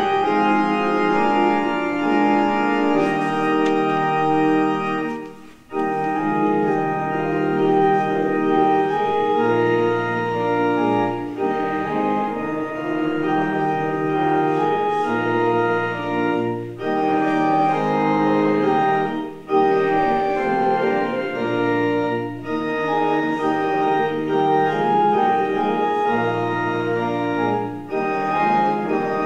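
Church organ playing a slow piece in sustained chords, pausing briefly between phrases, most clearly about five seconds in and again near twenty seconds.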